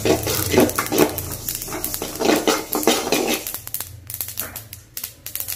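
A dog barking repeatedly in the background over the scraping of a spatula through black sesame seeds dry-roasting in an aluminium kadai. The barking stops about three and a half seconds in, leaving quick sharp clicks as the roasting seeds pop.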